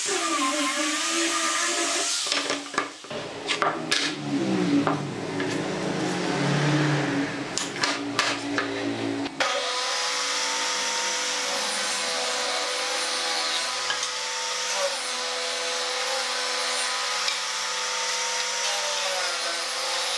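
Angle grinder with a sanding disc running against a pine board, followed by several seconds of uneven rubbing with sharp knocks. About nine seconds in the sound changes abruptly to a benchtop table saw running steadily with a fixed tone, as a board is fed along the fence to rip off a thin strip.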